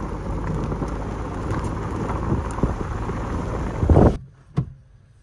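Wind buffeting a handheld phone's microphone, a dense rumbling rush mixed with handling noise as the camera swings. It stops abruptly about four seconds in, and a single short click follows in the quiet.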